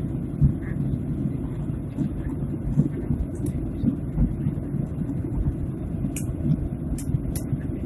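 Airliner cabin noise: a steady low rumble of the engines and airflow, with a few light clicks near the end.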